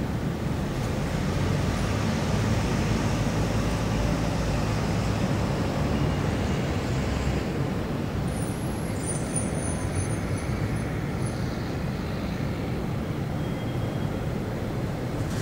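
Steady city road-traffic noise, a continuous low wash of vehicles, swelling slightly a couple of seconds in.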